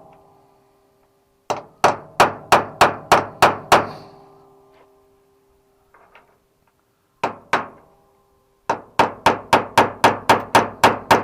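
Hammer tapping a sharp tool against a snapped-off screw in car body metal, about three taps a second in runs with short pauses and a metallic ring after each run. The taps are cutting an edge into the broken screw so it can be gripped and turned out.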